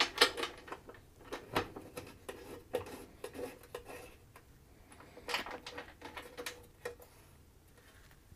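The bottom door of a 3M M-131 traffic light's housing being handled, closed and latched: a string of separate clicks and knocks, the sharpest just after the start.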